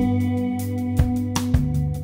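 Background instrumental music: held tones with a recurring beat of sharp hits.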